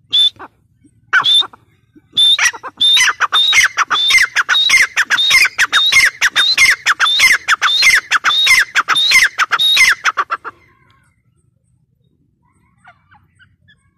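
Grey francolin calling: a few single shrill notes, then from about two seconds in a fast run of loud repeated notes, each sliding down in pitch, two or three a second, which stops abruptly about ten seconds in.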